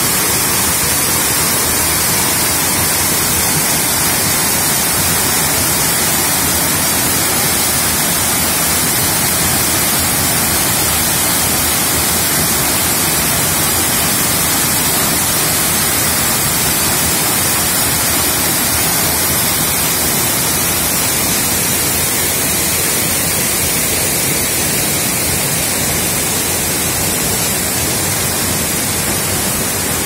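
Waterfall pouring down a rock face and crashing onto rocks below: a loud, steady rush of water.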